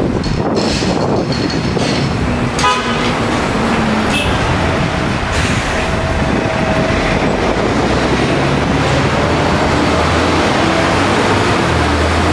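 Street traffic noise with a low engine rumble, and a short horn toot about two and a half seconds in.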